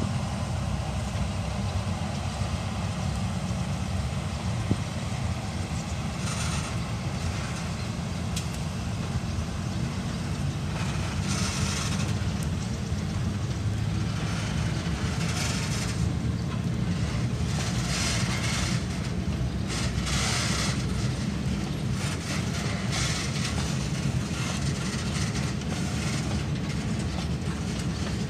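A freight train rumbling slowly past: the Chichibu Railway Deki 100 electric locomotive No. 102 hauling loaded limestone hopper wagons, wheels rolling on the rails. Several short bursts of brighter, higher noise rise over the steady rumble from about six seconds in.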